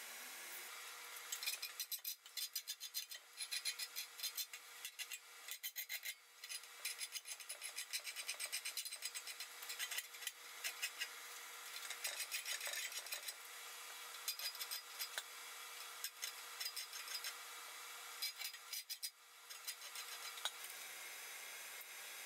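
A wire brush scrubbed in rapid back-and-forth strokes over a forged steel toasting fork, knocking off forge scale, in several runs with short pauses.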